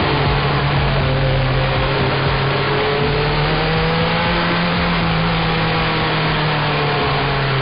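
Sport motorcycle engine running steadily under way, its pitch rising slightly and easing back about midway. Wind and road noise rush over the microphone.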